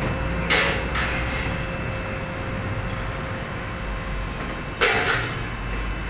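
Electrical tape pulled off the roll in short bursts while wrapping a spliced wire: two quick pulls about half a second in and two more near the end, over a steady background hum.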